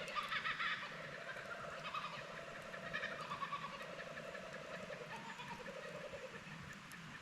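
Laughing kookaburra calling: a run of rapid chuckling notes that rise and fall, loudest in the first second and fading toward the end.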